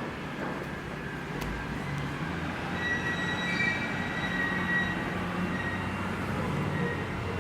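Steady mechanical hum with a thin high whine that comes in about three seconds in.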